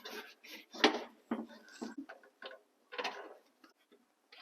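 Irregular knocks, clicks and rustles of a battery cable being handled and fed through, the sharpest knock about a second in and another cluster near three seconds.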